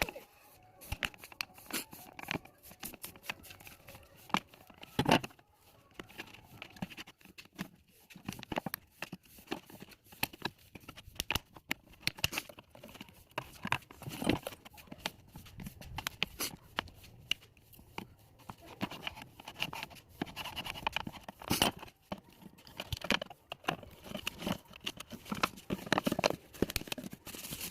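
Plastic bottle being handled and worked, crinkling and crackling in irregular clicks and scrapes.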